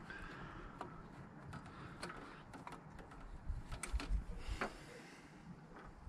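Faint, scattered clicks and light taps of hands working the automatic choke linkage on a Nissan K10 Micra's carburettor, with a few louder clicks and soft knocks a little past the middle.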